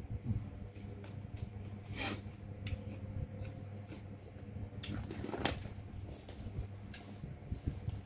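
Eating sounds at close range: a person chewing and handling food from a tray, with a few sharp clicks and two rustling bursts, about two and five seconds in, over a steady low hum.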